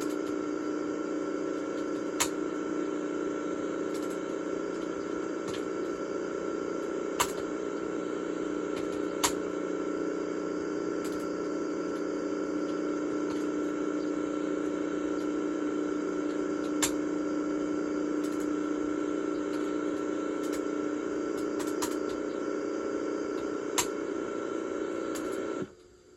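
Strange steady drone from the start or end of a VHS tape, with a steady high tone above it and sharp clicks every few seconds; it cuts off suddenly near the end.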